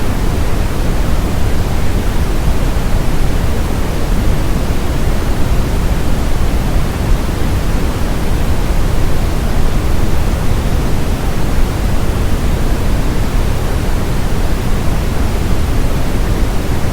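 Steady brown noise: an even, deep hiss that is strongest in the low end and fades toward the highs, unchanging throughout.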